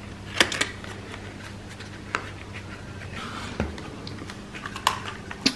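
Hands handling a folded plastic drone and its fabric propeller strap: scattered light clicks, taps and rustles over a faint steady low hum.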